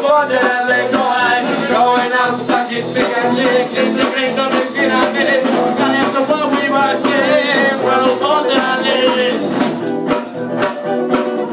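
Band playing swing music, a dense mix of melody lines over a steady rhythmic pulse.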